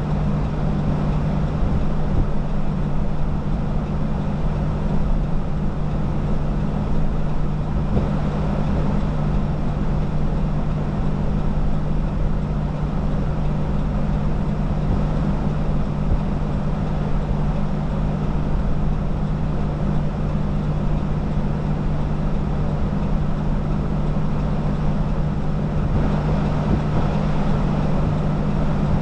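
Steady road and engine noise inside a vehicle's cabin: a constant low drone over a rushing rumble, unchanging throughout.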